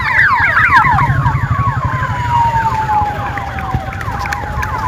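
Sirens of vehicles with flashing red and blue lights: one gives a rapid string of falling chirps, another a slow wail that dips and rises again. A low rumble of passing traffic runs underneath.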